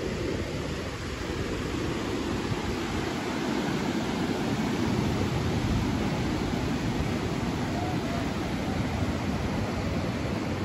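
Ocean surf breaking and washing up the beach, a steady roar that swells a little midway, with wind rumbling on the microphone.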